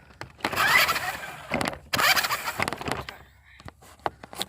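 Electric motor of an RC Polaris 4x4 revving in two bursts of about a second each, as the car strains against a bump it is stuck on.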